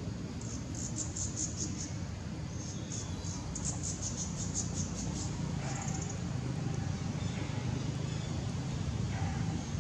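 Outdoor background noise: a steady low rumble with short runs of rapid, high-pitched chirping that come and go several times.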